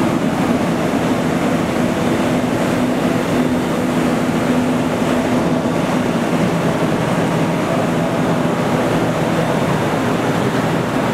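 Steady din of industrial plant machinery running, a dense continuous noise with a few steady low hum tones underneath.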